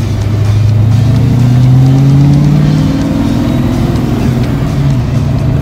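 Small-block V8 with a B303 cam, heard from inside a Fox-body Mustang's cabin, pulling steadily in gear with its pitch rising slowly, then easing back a little about five seconds in.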